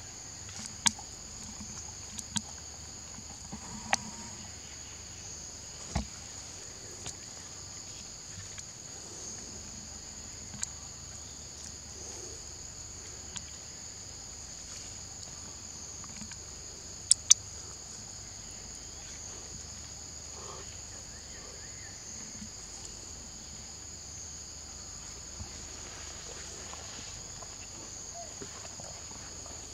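Steady insect chorus, a continuous high-pitched buzz, with scattered sharp clicks or snaps on top, the loudest two close together about seventeen seconds in.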